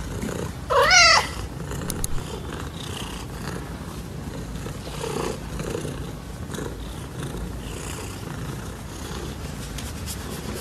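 Long-haired tabby domestic cat giving one loud warbling meow about a second in, with a steady low purr-like rumble underneath and two softer chirps a little past the middle.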